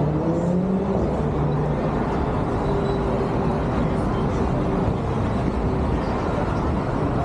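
City street traffic: a steady rumble of cars going by, with a faint engine hum now and then.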